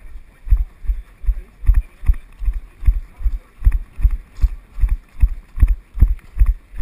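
A runner's steady footfalls on grass and gravel, heard as dull, evenly paced thumps about two and a half times a second, carried through a body-worn action camera.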